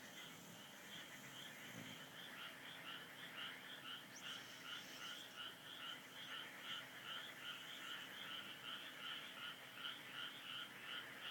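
Faint, rhythmic animal calling repeating about three times a second, with a dog's quiet snoring breaths near the start.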